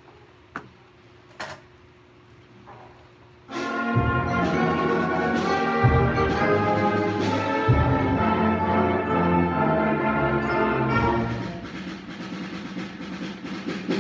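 Middle school concert band beginning its first piece: after a hush broken by two small knocks, the full band comes in about three and a half seconds in with loud sustained brass chords and low drum strikes, growing softer a little after ten seconds.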